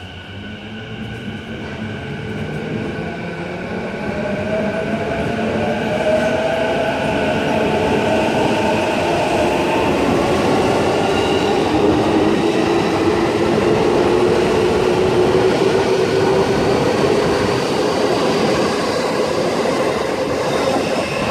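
Electric commuter train accelerating: the traction motors' whine rises slowly in pitch over the rumble of wheels on rail, growing louder over the first six seconds and then holding steady.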